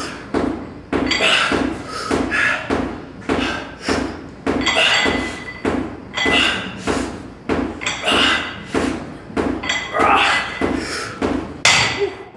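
Repeated sharp knocks and clanks, about two or three a second, each with a short ring.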